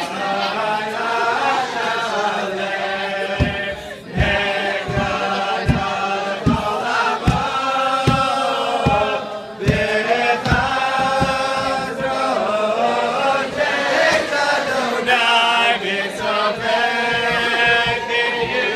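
A large group of teenagers singing a song together in unison, voices only, as a chorus. In the first half, a run of short low thumps sounds under the singing, roughly once or twice a second.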